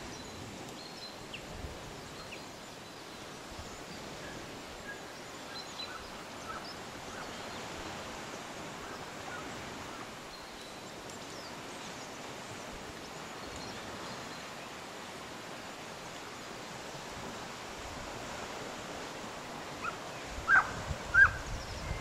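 Steady wash of sea surf and wind with faint, scattered bird chirps. Near the end two short, sharp sounds stand out as the loudest.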